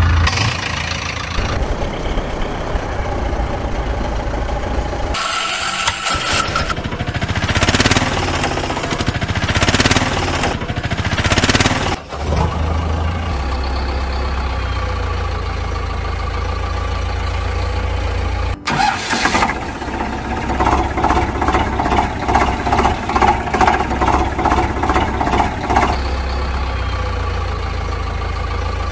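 Engine sound effects laid over the toy footage: a motor vehicle engine starting and running at idle with a steady low hum, the sound changing abruptly several times where clips are spliced together. About two-thirds of the way through comes a stretch of fast, even chugging lasting several seconds.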